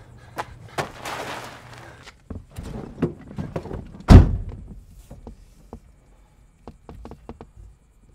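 A car door slams shut with a heavy thunk about four seconds in, after a run of knocks and shuffling steps. A few light clicks and taps follow from inside the car.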